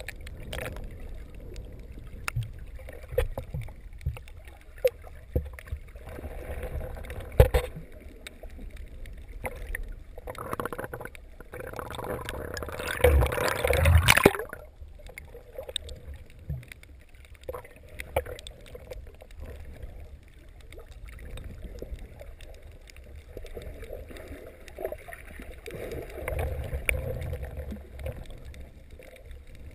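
Water heard underwater through a GoPro Hero 2's sealed housing: a low muffled rumble with scattered knocks. About twelve seconds in, the camera breaks the surface and there is a loud splashing rush for about two seconds, cut off sharply as it goes back under.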